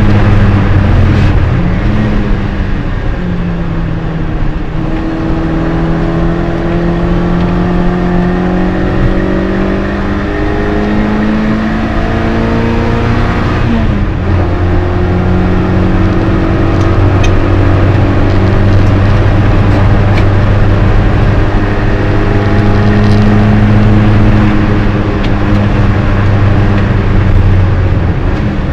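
MG Midget race car's engine at full race pace, heard from inside the cockpit. Its pitch climbs slowly as the car pulls, and drops sharply about a second in, near five seconds and near fourteen seconds before climbing again.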